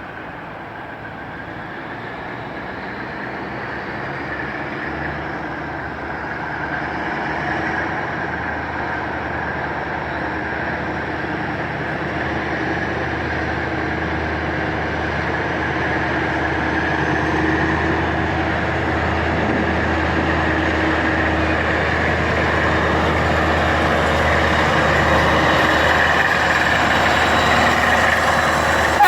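Two DE 24000-class diesel-electric locomotives working under power as they approach, their engines a steady drone that grows gradually louder throughout.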